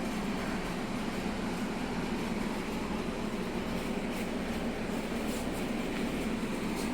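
Steady hum of running household machinery in a kitchen: a constant low drone under an even hiss, with a few faint ticks.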